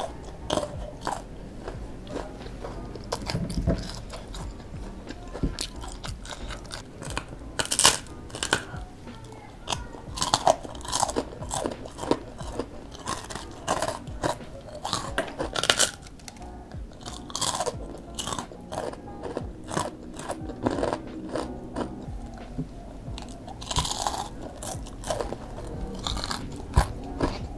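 Close-up crunching and chewing of crispy battered fried tempeh, with sharp crackly bites at irregular intervals and clusters of louder crunches partway through.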